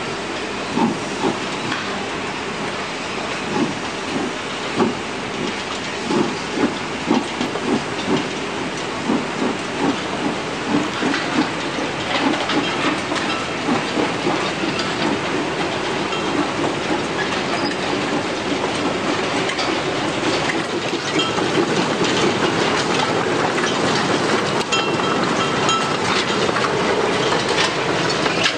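Loaded sugar-cane wagons on narrow-gauge track rolling past behind a fireless steam locomotive: wheels knock over the rail joints, spaced out at first and then coming faster, until about twelve seconds in they merge into a steady rattling rumble of the passing wagons.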